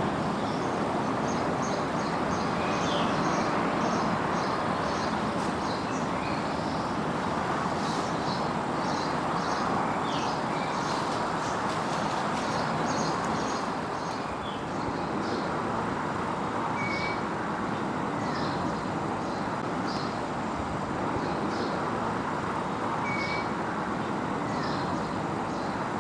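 Steady hum of distant motorway traffic, with small birds chirping repeatedly over it.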